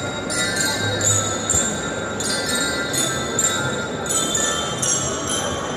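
Marching band music led by bright, ringing struck bell notes, a new stroke about every half second over a dense, noisy background.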